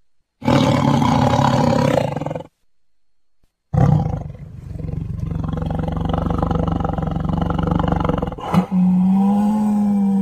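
A big cat roaring: a loud roar of about two seconds, a short pause, then a longer drawn-out roar. Near the end, after an abrupt change, a steadier call at one held pitch takes over.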